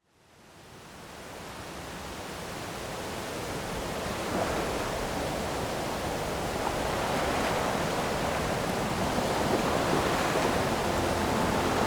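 Ocean surf, waves washing on a shore, fading in from silence over the first few seconds and then rolling on in slow swells.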